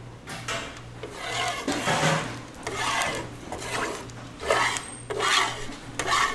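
Plastic spatula scraping across an oiled, textured griddle pan to spread the cooking oil, in a series of short scraping strokes about one to two a second.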